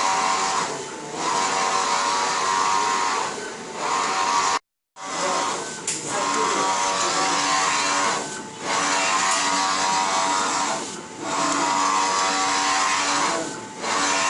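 A small electric motor running at a steady high pitch in spells of about two and a half seconds, each broken by a brief dip. The sound drops out completely for a moment about four and a half seconds in.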